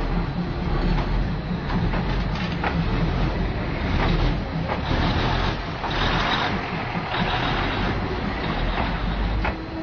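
Passenger train passing slowly at close range: a low rumble with scattered clicks of the wheels on the rails, the rumble dropping away near the end as the last car goes by.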